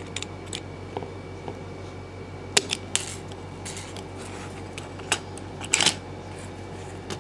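Utility knife blade scoring and scraping the plastic jacket of a thin four-conductor cable, heard as a few short scratchy scrapes and clicks while the jacket is cut and worked off the wires, over a steady low hum.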